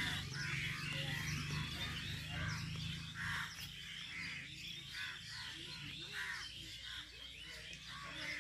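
Birds calling repeatedly outdoors, short harsh calls about once a second, with a low rumble of wind on the phone's microphone that is strongest over the first few seconds.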